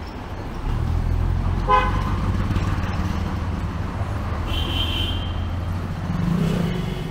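Street traffic: a vehicle's engine running close by with a low, steady rumble that grows louder under a second in, and horn toots over it: a short honk about two seconds in, then a higher-pitched toot around five seconds and a fainter one near the end.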